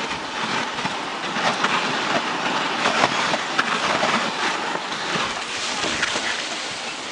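Dog sled's runners sliding over snow: a steady scraping hiss broken by many small crunches and knocks.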